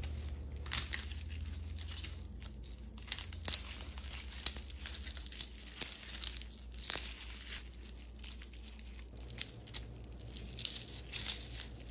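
Fresh lemongrass stalks being bent, folded and knotted by hand, giving scattered soft crackles and rustles of the fibrous leaves, with a low hum underneath.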